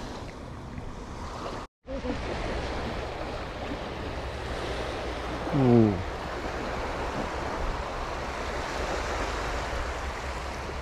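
Small waves breaking and washing up the beach with wind on the microphone, a steady rushing noise. It cuts out for an instant just before two seconds in, and about six seconds in a short, loud sound drops steeply in pitch.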